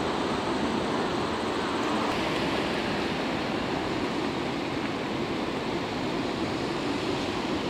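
Steady rushing rail-yard noise as an EF510 electric locomotive rolls slowly over the yard's points toward the listener, with no distinct clicks or horn.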